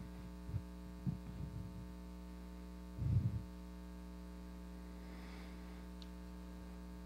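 Steady electrical mains hum, with a few soft low thumps, the loudest about three seconds in.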